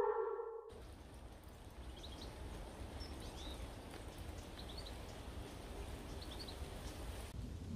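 Light rain falling on leaves, a soft steady hiss, with a bird chirping briefly four times. It opens with the tail of a falling, siren-like tone that cuts off within the first second.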